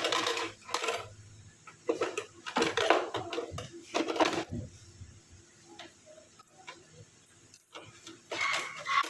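Intermittent clattering and handling noises in short irregular bursts, with a quieter stretch in the middle and another burst near the end.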